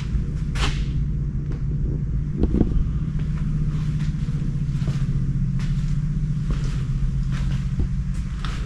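Steady low rumble with scattered footsteps and small knocks, the loudest about half a second and two and a half seconds in.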